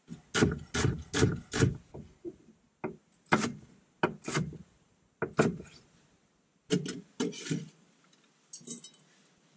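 Kitchen knife chopping frozen celery on a wooden cutting board: about four quick chops in the first two seconds, then single chops at irregular gaps.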